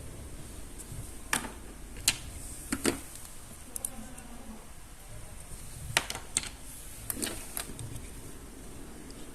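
Plastic toy parts being handled, with irregular sharp clicks and knocks, about eight or nine in all, as pieces are unpacked or snapped together.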